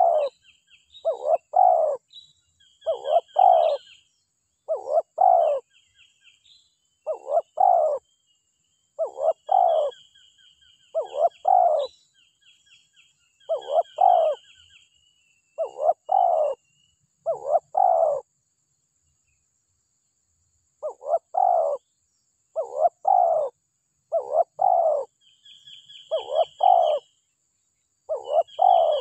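Spotted dove cooing: short paired coos repeated about every two seconds, with a pause of a few seconds midway. Higher chirps from other birds sound between the coos.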